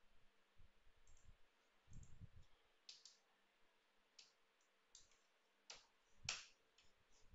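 Faint computer mouse clicks and key presses: scattered sharp clicks about once a second, the loudest near the end, with a dull low thump about two seconds in.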